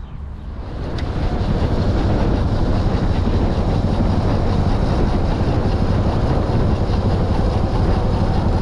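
Wind buffeting the microphone over a running motorbike, a dense steady rush that builds over the first two seconds as the bike gets under way, then holds.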